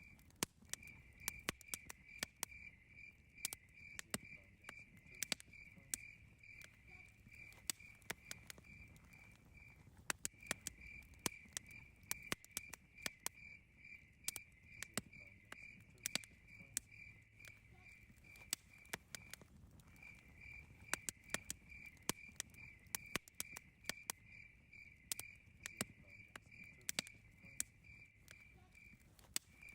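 Wood campfire crackling with sharp, irregular pops, over a cricket chirping steadily about twice a second, its chirping stopping briefly about every nine or ten seconds.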